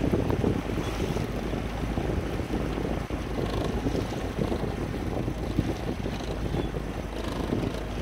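Steady wind rushing over the microphone with the wash of water as the boat moves along the river, with no distinct paddle strokes standing out.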